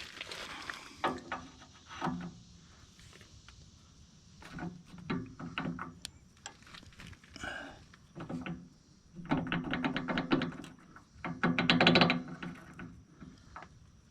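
Metal clinks and knocks from hand work on a backhoe's shear-pin linkage as the pin and washers are fitted. In the second half there are two louder runs of rapid clicking.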